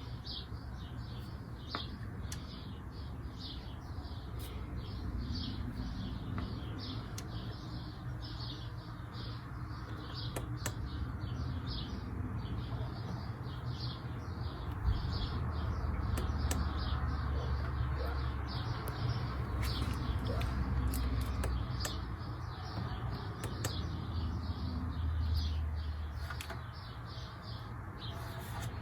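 Miele Meteor 1000 Novotronic washing machine running with a low hum that swells and eases. Short high-pitched sounds repeat about twice a second over it.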